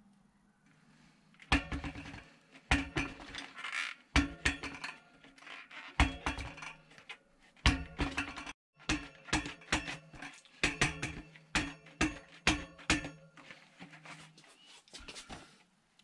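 A quick run of sharp hits with ringing tones, about two a second, starting about a second and a half in, with a brief break just past the middle.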